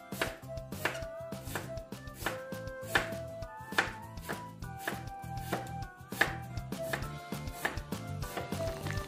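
Chef's knife chopping a raw beet on a wooden cutting board: irregular sharp knocks of the blade against the board, about two a second, over background music.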